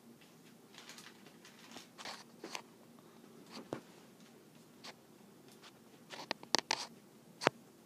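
Plastic toy track pieces being handled and fitted together: scattered light rustles and clicks, with a cluster of sharper clicks about six seconds in and one loud click near the end.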